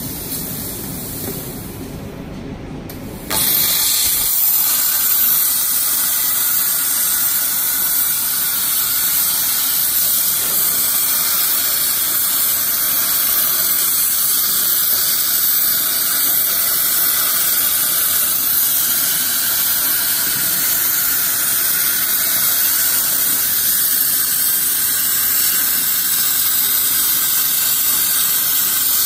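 A 100-amp plasma torch on a SteelTailor Legend B52 CNC table cutting 20 mm steel plate. Its loud, steady arc hiss switches on suddenly about three seconds in, after a quieter low noise, and stops right at the end as the cut finishes.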